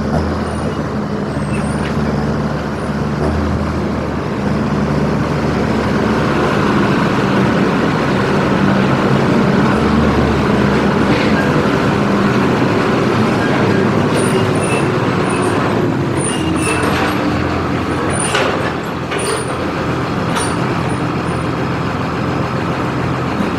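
Truck engine running steadily under way, with road noise, its pitch rising a little and falling back around the middle. A few light clicks or rattles come near the end.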